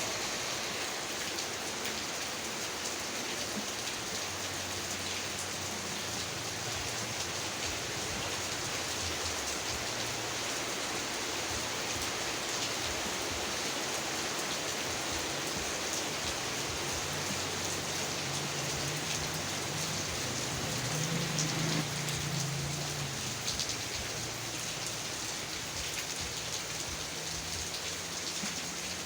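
Heavy rain falling steadily: a dense, even hiss full of drop ticks. A brief low rumble rises under it about two-thirds of the way through.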